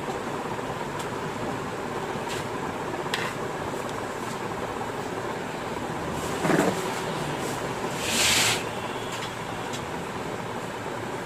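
Steady background noise, machine-like, with a single thump about six and a half seconds in and a short hiss about eight seconds in.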